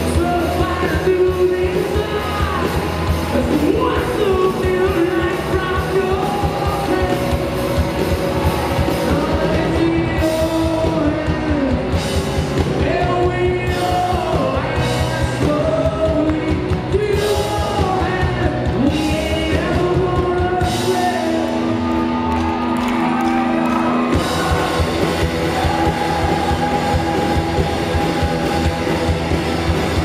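Live rock band playing with distorted electric guitars, drums and a male lead singer, heard loud from the crowd in a large tent. About two-thirds of the way through, the bass and kick drum drop out for a few seconds under a held note, then come back in.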